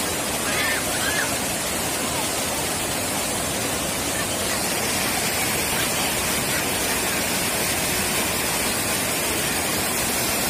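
Floodwater from an overflowing river rushing over a concrete ledge in fast white rapids, a steady, unbroken rushing of water.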